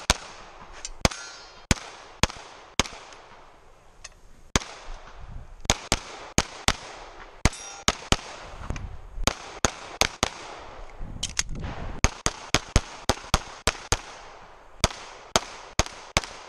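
Semi-automatic pistol shooting rapid strings of shots, about thirty in all, mostly in quick pairs a third of a second apart, with short lulls between groups: two hits fired at each target while the shooter moves through a practical-shooting stage.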